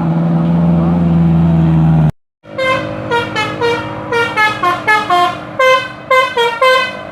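A steady low drone cuts off suddenly about two seconds in. After a brief gap the bus's basuri telolet horn plays its melody in short, stepping notes, about three a second.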